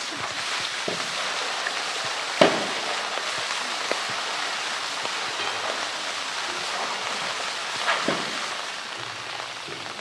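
A steady wash of water noise, like rain or running water. Over it comes a sharp knock about two and a half seconds in and another near eight seconds, as the polar bear bumps and pushes a blue plastic drum.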